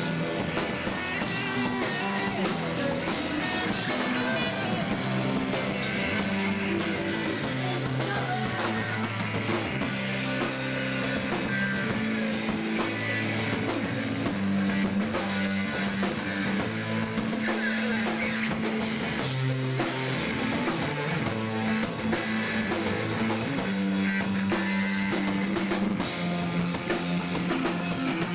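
Rock band playing live: electric guitars, bass and drum kit, loud and without a break, with low bass notes changing every second or two.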